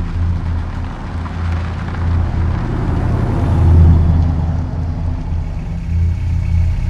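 A car driving: its engine hum and tyre noise grow louder as it passes close about four seconds in, then settle to a steadier, duller low engine hum as heard from inside the cabin.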